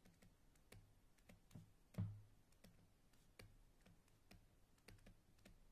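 Faint, irregular clicks and light taps over near silence, about a dozen in all, the loudest a small thud about two seconds in.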